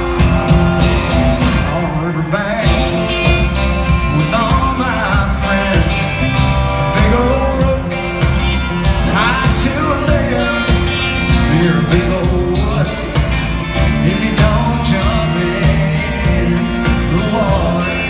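Live country band playing loud in an arena, heard from the seats: steady bass and drums under a lead line that bends up and down in pitch.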